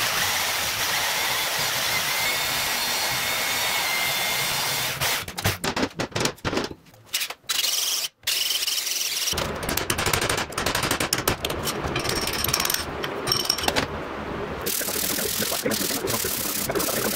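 Steel shop work on a driveshaft held in a vise, in quick cuts. First a power saw cuts steadily through the steel shaft with a thin whine. Then several short choppy bits, an electric drill boring into the steel coupler, and near the end abrasive cloth rubbing back and forth over the shaft.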